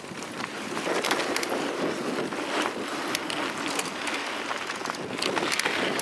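Mountain bike rolling over a dirt track, heard through a camera mounted on the bike: steady tyre and wind rush with scattered sharp clicks and rattles from bumps.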